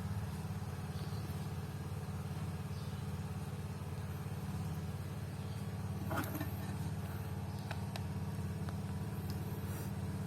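A vehicle engine idling steadily, with a few light clicks about six seconds in.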